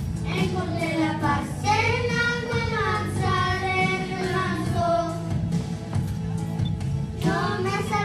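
Young girl singing a Christian song into a microphone over musical accompaniment, amplified through the hall's speakers. The notes are held and gliding, with a short break about seven seconds in before the next line.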